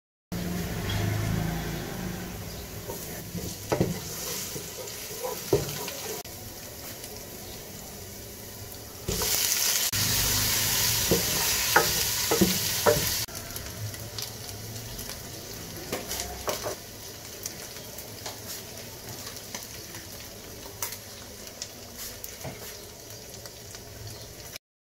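Sliced onions sizzling in hot oil in a pot while a wooden spoon stirs them, with knocks and scrapes of the spoon against the pot. For about four seconds near the middle the sizzle turns louder and brighter, with several sharp taps of the spoon.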